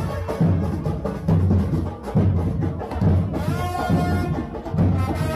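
Carnival parade band playing in the street: deep bass drums beat a steady rhythm with lighter percussion between the beats, and a short melody joins in a little past the middle.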